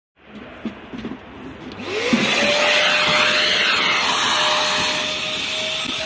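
Small drum-type wet/dry vacuum cleaner switched on about two seconds in, after a few faint handling knocks: its motor spins up, the pitch rising quickly and then holding steady over a loud, even rush of air.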